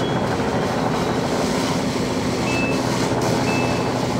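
Fire apparatus engine and pump running steadily at a working fire, a continuous low drone mixed with the rushing hiss of hose streams. Two brief faint high tones sound in the second half.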